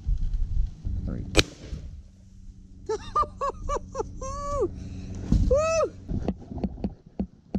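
A single sharp bang about a second and a half in, a 12-gauge shell being fired. A high voice follows, crying out in five quick rising-and-falling yells and then two longer ones.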